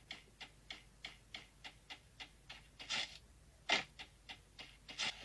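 Mobile shooter game sound effects from the phone: the character's running footsteps as quick, even ticks, about three a second, with two louder sounds around three and four seconds in.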